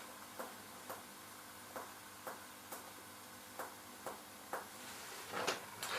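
Finger-on-finger percussion of a patient's body: the doctor's striking middle finger tapping the pleximeter finger pressed against the skin. Faint, short taps about half a second apart, in small groups of two or three.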